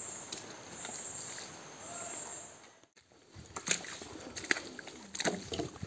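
Footsteps, scuffs and knocks of hikers walking a muddy jungle trail, over a high insect buzz that pulses about once a second. The sound drops out briefly about three seconds in, and the footsteps are clearer after it.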